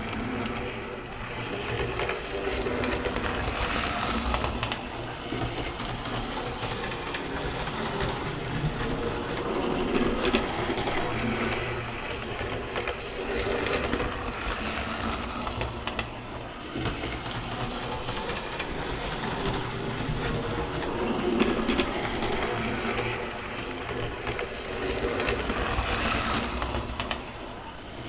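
Model train running along the track, with a steady mechanical clatter and hum that swells in loudness several times.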